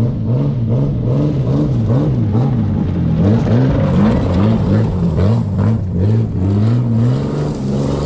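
Jeep Grand Cherokee engine revving up and down again and again as it drives hard past on gravel, with stones crackling under the spinning tyres.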